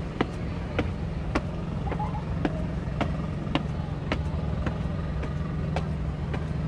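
Footsteps of someone walking at a steady pace, a sharp step a little under twice a second, over a steady low motor-vehicle engine hum.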